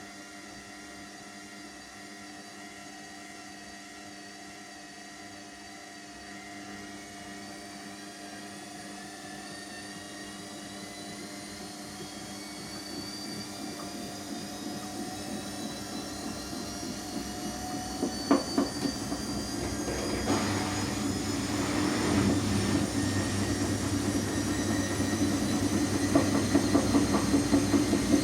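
Washing machine drum speeding up into a spin: the motor's whine rises steadily in pitch and grows louder. A few knocks come about two-thirds of the way in, then a heavier rumble with a fast regular thudding as the drum gets up to speed.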